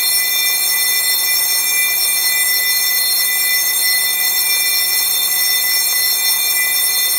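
SEIKO Super Raiden NR523W alarm clock ringing loudly and without a break at its strongest 'SUPER' volume setting, a bell sound like an emergency alarm bell.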